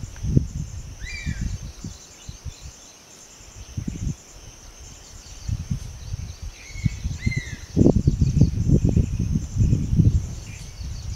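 Outdoor forest ambience: a steady, pulsing high trill of insects, with a bird giving a few short rising-and-falling calls. Irregular low buffeting thumps are the loudest sound, heaviest in the second half.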